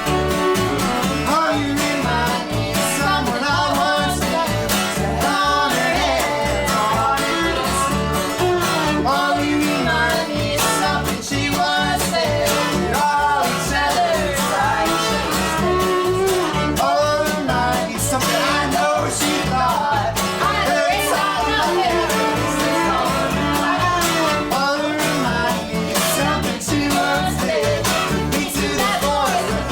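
Live acoustic folk band playing: guitar, viola and bass, with a steady low pulse and a gliding bowed melody on top.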